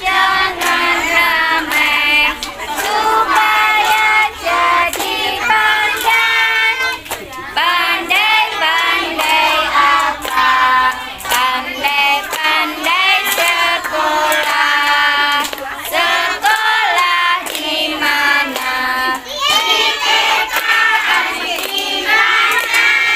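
A group of young children singing a song together and clapping their hands along with it.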